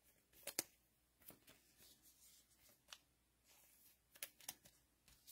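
Faint handling of trading cards and a foil card pack: scattered light clicks and rustles, with a sharper tap about half a second in and two more close together near the end.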